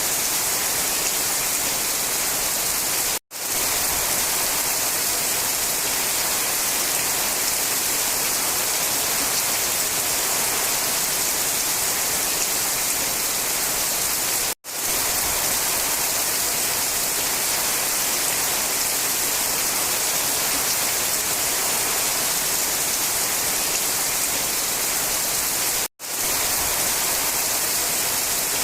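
Steady rainfall, an even hiss of falling water, cutting out to silence for a split second three times, about every eleven seconds.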